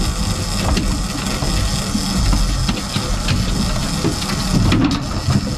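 Boat engine running steadily, a low rumble with scattered knocks and clicks over it.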